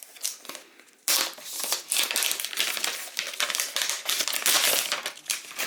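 Plastic wrapping on a new tablet crinkling as it is handled and pulled off. A few clicks come first, then a dense crackle starts about a second in.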